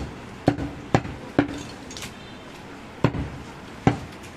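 Large butcher's knife chopping mutton on a wooden log block: about seven sharp chops at uneven intervals, quicker in the first half, some followed by a brief dull ring.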